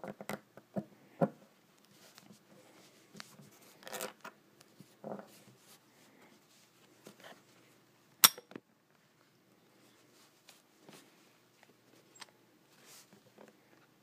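Scattered clicks and knocks of an IKH BW015 brass padlock and its lockpicks being handled on a woven mat, with one sharp metallic click, the loudest, a little past the middle.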